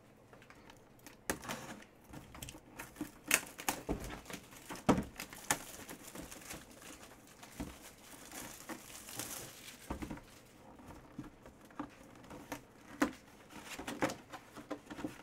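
Plastic packaging crinkling and tearing as a sealed mini-helmet box is opened and handled, with irregular sharp clicks and knocks, the loudest about three and five seconds in.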